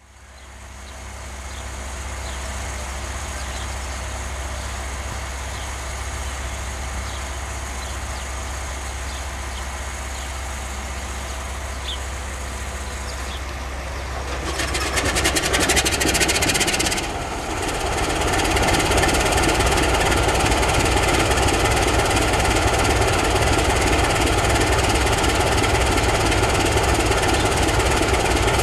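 Sulzer twelve-cylinder diesel engine of a CFR Class 60 (LDE 2100) diesel-electric locomotive starting up. A steady low hum goes on for about fourteen seconds, then comes a short rising rattle as the engine is cranked. The engine catches and runs steadily, louder, at idle.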